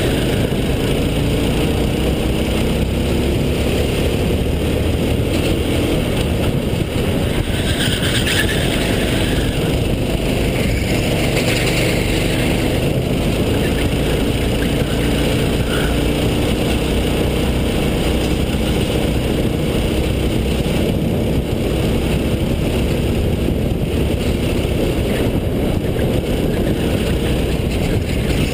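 Racing kart's engine heard from the onboard camera while lapping, its pitch rising and falling with the corners. A steady, loud rush of noise runs underneath it.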